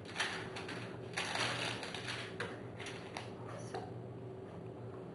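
Aluminium foil crinkling and rustling under the hands in crackly bursts, fading to a faint rustle after about four seconds.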